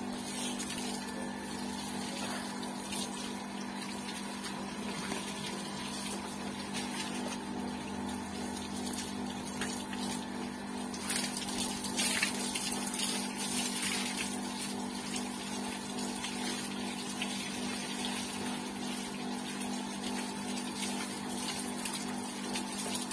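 Water from a garden hose spraying and splashing over a motorcycle and the wet concrete beneath it, over a steady hum. The splashing gets louder and sharper about halfway through.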